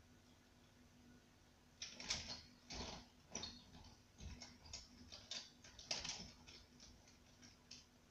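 Colouring pens clicking and rattling against one another as a hand rummages through a pencil case: an irregular string of small clicks that starts about two seconds in and dies away near the end.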